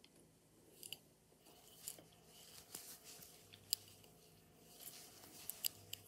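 A metal latch hook being worked through wool yarn: faint rasping of yarn drawn through the stitches, with a handful of small, irregular clicks.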